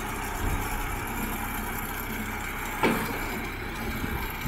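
Belarus tractor's diesel engine running steadily at low speed as the tractor creeps up onto a flatbed trailer, with one brief clunk about three seconds in.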